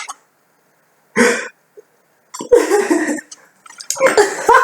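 A person coughing and gagging in three short bursts, a reaction to a mouthful of an unknown food.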